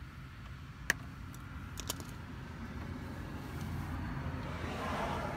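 Wires being snipped with cutters: one sharp snip about a second in and two lighter clicks a second later, then a low rushing sound that swells toward the end.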